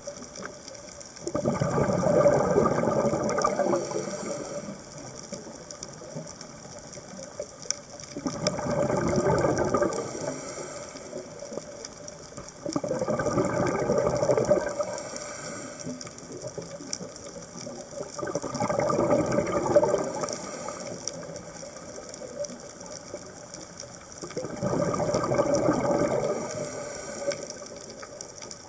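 Scuba diver's exhaled bubbles rushing out of the regulator underwater: five bubbling bursts of breath, each two to three seconds long, in a steady rhythm about every six seconds.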